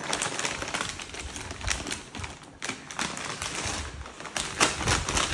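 Brown paper mailing bag crackling and tearing as a boxer dog tugs at it with its mouth while a hand holds the bag, a steady run of rapid rustles and rips.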